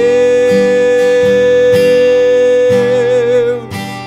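Acoustic guitar strumming under a long held sung note that wavers with vibrato near the end and fades out a little before the next line.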